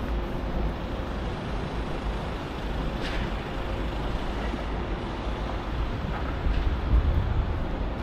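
Steady city road traffic with heavy vehicles going by: a continuous low rumble, a short hiss about three seconds in, and a louder rumble near the end.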